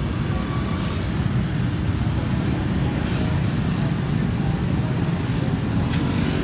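Steady low rumble of passing road traffic, with one sharp click near the end.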